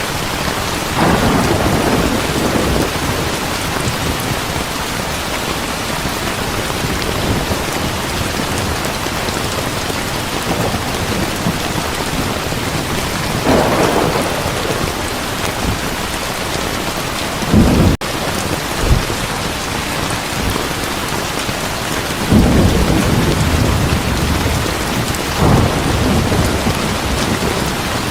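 Heavy rain falling steadily, with thunder rumbling several times: about a second in, near the middle, a short sharp clap around two-thirds through, and a longer rumble in the last few seconds.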